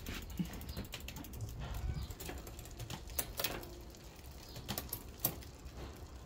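Road bike drivetrain being turned by hand: the freshly oiled chain running over the cassette, with the freehub ratcheting and irregular sharp clicks. It is a check for clicking in the drivetrain after lubrication.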